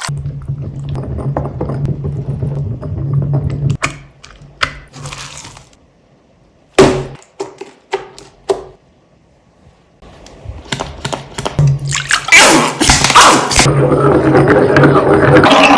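Slime being pressed and crushed by hand: irregular wet squelches, pops and sharp crackles, with short pauses between clips and a long stretch of dense squishing in the last few seconds.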